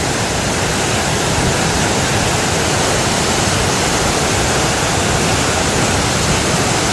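Flash-flood water rushing through a ravine: a steady, loud roar of noise with no let-up.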